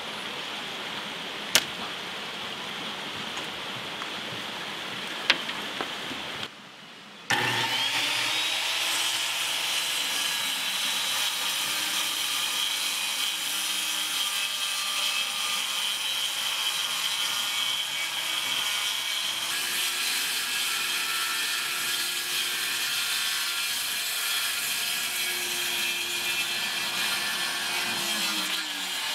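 A corded circular saw rips a long cut through a plywood sheet. It spins up about seven seconds in, runs steadily under load with a high whine, and winds down near the end. Before the saw, a chalk line snaps sharply on the plywood twice.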